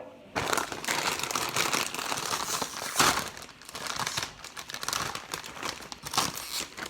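A foil-lined snack bag being handled and pulled open, the packaging crinkling and crackling continuously in irregular bursts, loudest about three seconds in and again near the end.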